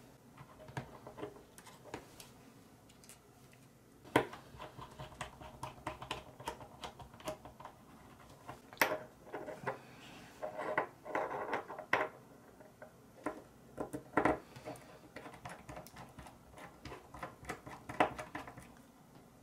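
Small metal parts of a radial engine model kit clicking, tapping and rubbing together as they are handled and fitted by hand, with a few sharper knocks.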